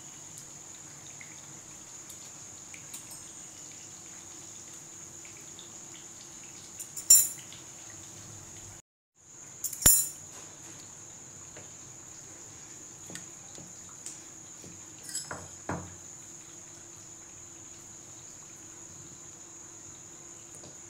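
A steady high-pitched chirring of crickets, with a few sharp clicks and knocks from dough pieces and a fork being handled on a marble rolling board. The two loudest come about seven and ten seconds in, and lighter taps follow a few seconds later.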